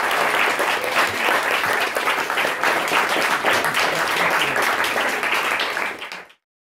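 Audience applauding after a live acoustic song, a dense patter of many hands clapping that fades out about six seconds in.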